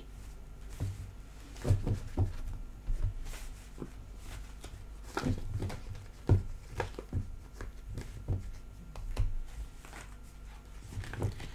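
Tarot cards being shuffled in the hands and laid down on a table: irregular soft taps, flicks and light thuds of card stock.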